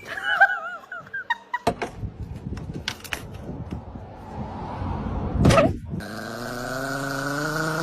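A dog vocalizing: a short wavering whine at the start, scattered knocks through the middle, then a long steady low growl over the last two seconds.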